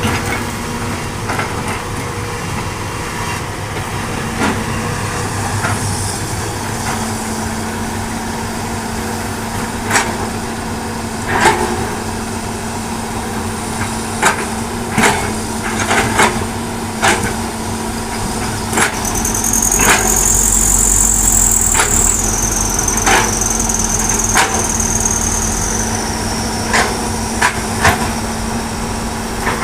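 Hitachi hydraulic excavator's diesel engine running steadily, with a dozen or so sharp clanks and knocks from the bucket and its load. In the middle it works harder for several seconds: a deeper rumble and a high hydraulic whine that steps down in pitch.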